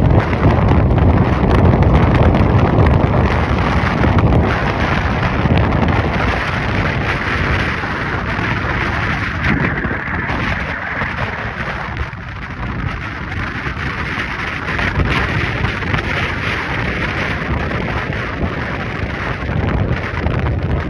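Wind buffeting a phone microphone outdoors: a steady, gusty rumble that eases a little about halfway through before picking up again.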